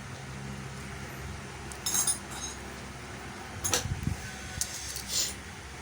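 Small hard clicks and clinks, a few scattered strokes, from handling a plug's plastic and metal parts and tools during the repair.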